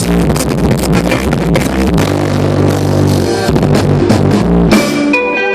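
A band playing, with drum kit, bass and guitar. Just before the end the drums and bass stop and a held chord rings on.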